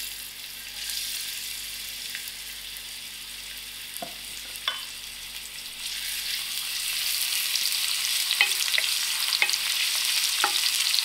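Chopped onion frying in hot oil in a stainless steel pot, a sizzle with scattered crackles that grows louder from about six seconds in. A wooden spoon stirs the onions near the end.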